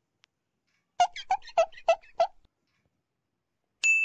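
Added cartoon sound effects: a quick run of six short, bouncy high notes, then a bright bell-like ding near the end that rings on.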